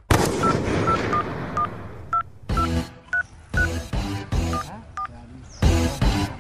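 Mobile phone keypad tones as a number is dialled: about a dozen short beeps at uneven spacing, over background music.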